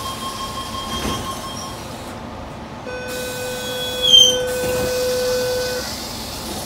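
Electric suburban train's sliding passenger doors: a steady high warning tone sounds as they close and stops just before two seconds in. About three seconds in a lower steady tone starts, and the doors slide back open with a loud clunk and short squeal just after four seconds in.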